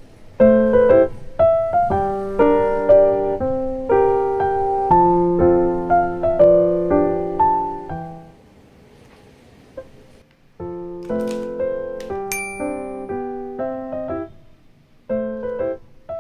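Background piano music: a light tune of separate plucked-sounding notes that breaks off for about two seconds partway through, then starts again.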